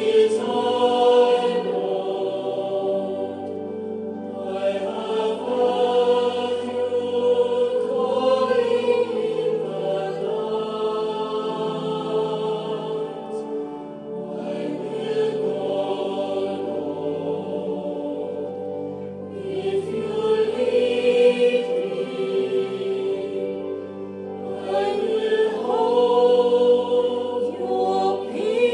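A choir singing a hymn, in phrases a few seconds long with brief dips between them.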